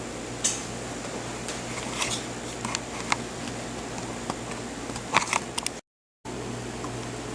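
Light, scattered clicks and taps of a wooden rolling pin working dough on a table, over a steady room hum, busiest about five seconds in. The sound drops out completely for a moment shortly before the end.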